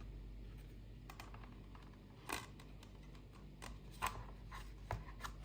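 Faint handling noise from Blu-ray box set packaging: a handful of light clicks, taps and scrapes spaced irregularly, with the sharpest ones about two seconds in and about four seconds in.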